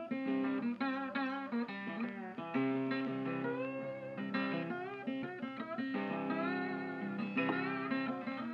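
Background music: a guitar-led instrumental whose notes bend in pitch.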